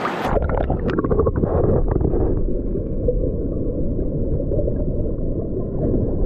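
Muffled underwater rumble of river water heard through a camera just plunged below the surface. The high sounds cut off suddenly about a quarter second in, a scatter of clicks and bubbling follows for the next two seconds, and then a steady low rumble continues.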